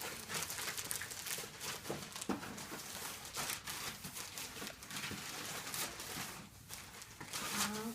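Packaging rustling and crinkling with irregular short crackles as a shipping parcel is opened and unpacked by hand.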